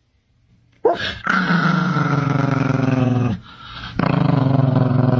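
A Chihuahua growling in two long, steady, low growls, the second starting about four seconds in. A short sharp sound about a second in comes just before the first growl.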